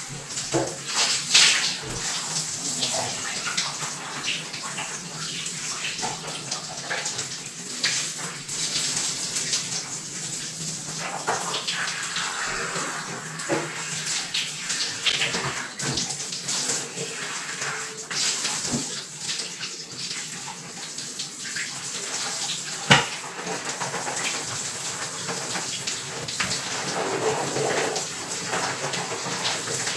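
Water in a jacuzzi splashing and churning: irregular splashes over a steady rush of water.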